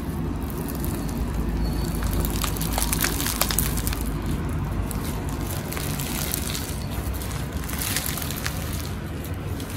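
Crunchy bead-filled slime coated in chunky glitter being squeezed and stretched by hand, giving a continuous crackle of many small crunching pops as the beads pop and grind.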